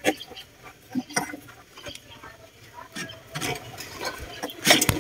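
Diesel fuel filter housing being worked loose by hand and lifted from its mount: a few light plastic clicks and knocks, with a louder clatter near the end.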